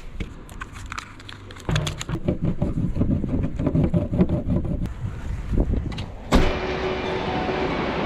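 Clattering knocks and rattles of gear being handled, likely a surfboard being taken down. About six seconds in, a sudden hit gives way to steady music.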